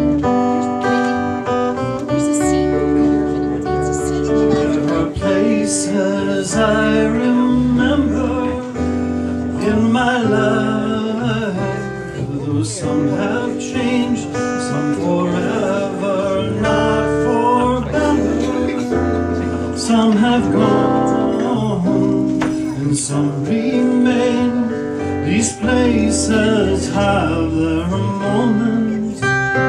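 Acoustic guitars played live with a voice singing over them.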